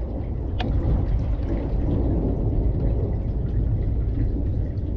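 Thunderstorm ambience: a steady low rumble under a hiss of rain, with a few sharp ticks, the clearest about half a second in.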